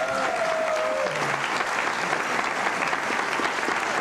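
Theatre audience applauding steadily. A long held voice tone carries over from just before and ends about a second in.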